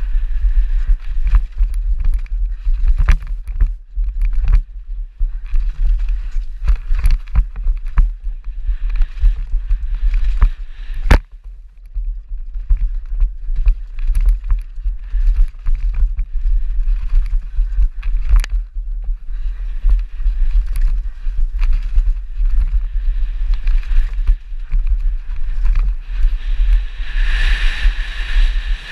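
Downhill mountain bike ridden fast down a rough dirt trail, heard through heavy wind buffeting on the camera's microphone, with frequent sharp knocks and rattles from the bike hitting bumps. A louder hiss builds near the end.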